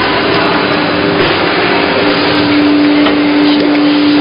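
Injection moulding machine making plastic cups, running loud and steady through a moulding cycle, with a steady hum that grows louder about two seconds in.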